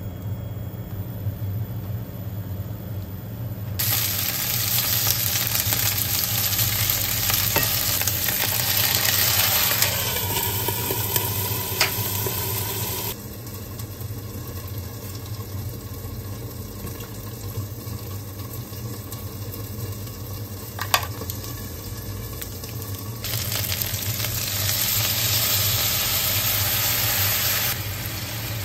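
Pieces of chicken frying in oil in a nonstick frying pan, sizzling steadily while tongs turn them, over a steady low hum. The sizzle grows louder a few seconds in, drops away for about ten seconds in the middle, where two sharp clicks are heard, and comes back near the end.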